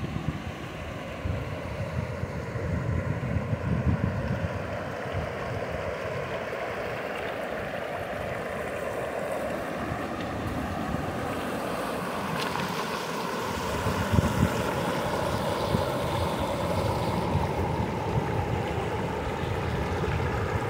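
Shallow river water rushing and rippling over stones and small cascades, a steady wash that grows a little louder about two-thirds of the way through. Wind gusts buffet the microphone.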